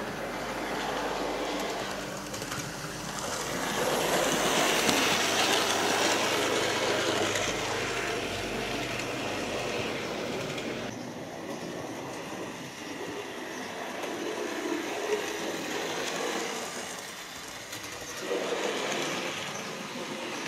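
Model railway locomotive running round the layout, a continuous rolling rumble of small wheels on the track and the loco's electric motor. It grows louder as the train passes close by, about four seconds in and again near the end.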